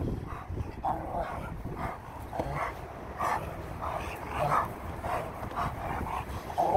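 Rottweilers making short, repeated play vocalizations, about two a second, as they tussle over a tire.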